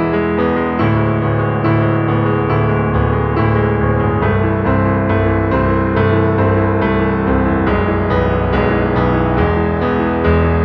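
Background piano music, with notes struck at an even pace of about two a second.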